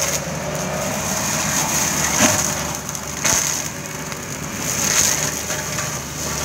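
Kubota KX71-3 mini excavator's diesel engine running under load while its yellow brush-clearing head shreds brush and saplings, a steady crunching with a few sharp cracks of splintering wood.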